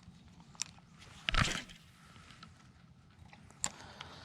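Scissors snipping a soft-plastic fishing lure: a few sharp clicks and one louder crunchy cut about a second and a half in.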